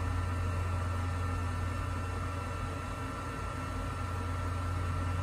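Steady low electrical hum and fan noise, with a faint thin high-pitched whine, from a parked light aircraft's powered-up cockpit avionics.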